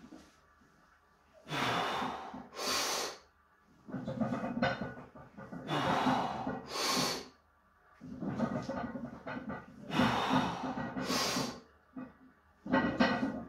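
A powerlifter's forceful breathing during heavy barbell back squats: pairs of sharp, loud breaths taken about every four seconds between reps, with lower, strained breathing as he works through each rep.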